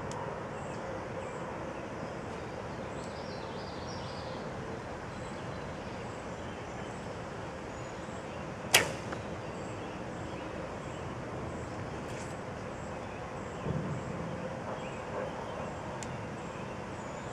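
A recurve bow is shot once: a single sharp snap of the string on release about nine seconds in. A soft, dull thump follows about five seconds later, over steady outdoor background noise.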